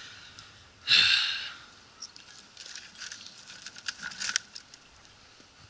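Scrap metal and junk rattling in a plastic bucket as things are put in, with one loud rattle about a second in, then scattered light clinks and taps as the pieces are handled.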